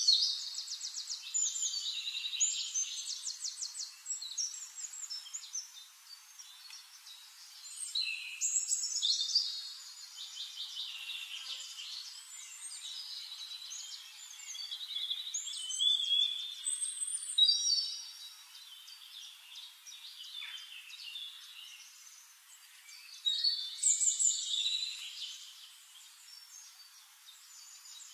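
Small songbirds singing: phrases of fast, high trills and chirps in bursts a few seconds long, with quieter gaps between.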